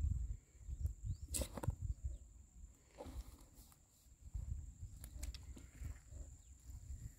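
Scattered knocks, thumps and rustles as a fishing net holding large fish is handled and dragged over dry ground, the sharpest knock about a second and a half in, over a low rumble and a steady faint high whine.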